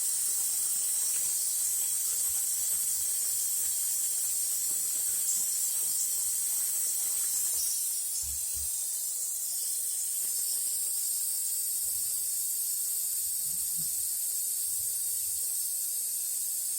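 CNC router spindle running at speed with a steady high-pitched hiss, spinning in the wrong direction. The level dips slightly about eight seconds in.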